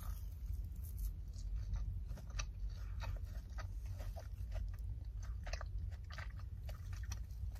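A person biting into a fried, breaded coxinha and chewing it, with soft, irregular crunches from the crisp crust.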